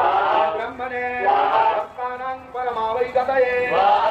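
A man's voice singing a chant in long held, wavering notes, phrase after phrase, with short breaks between them.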